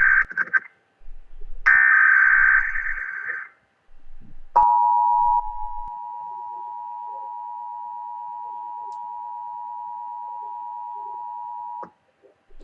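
Mock Emergency Alert System tones: a screeching digital header burst trails off and a second burst sounds for about two seconds. About a second later a long, steady high attention tone starts and holds for about seven seconds before it cuts off suddenly.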